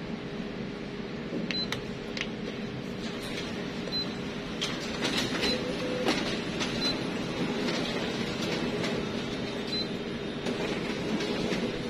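Short high beeps from a Canon imageRUNNER ADVANCE 4235i copier's touchscreen control panel as its service-mode menu buttons are tapped, about five in all, over a steady machine hum with scattered light clicks.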